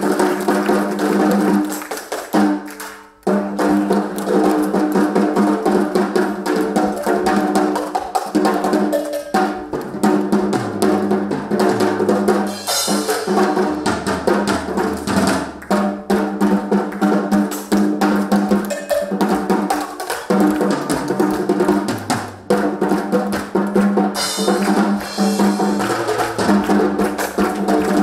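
A live drum ensemble playing a busy rhythm on marching snare drums, a bass drum and cymbals. Underneath it, sustained pitched notes and a lower line step up and down.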